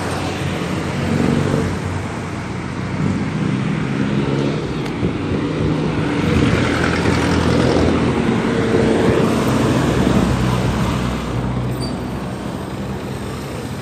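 Road traffic close by: engines of passing vehicles running with tyre noise, louder for a few seconds in the middle.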